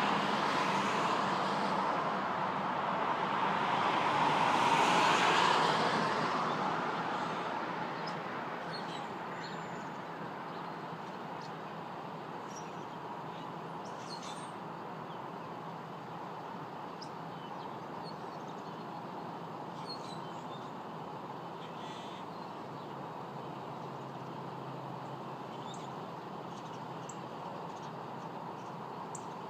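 A vehicle passes, its noise swelling and then fading out by about ten seconds in. After that, small birds give short, scattered chirps over a steady background hum.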